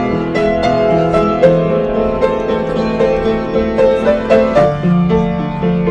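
Piano music, held notes changing one after another in a melody over chords.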